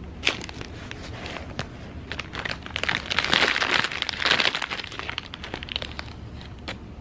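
A plastic bag of Flamin' Hot Cheetos crinkling as a hand rummages in it. The crinkling builds and is loudest in the middle, after a sharp click of handling just at the start.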